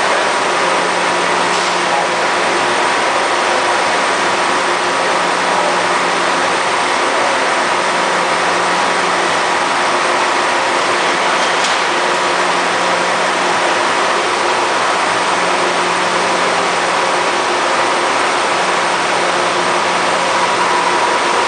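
Ingersoll dual-head bridge CNC planer mill running: a loud, steady machine hum and whine with no change in speed.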